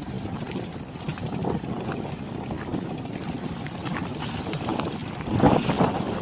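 Wind buffeting the microphone: a steady low rumble, with a stronger gust about five and a half seconds in.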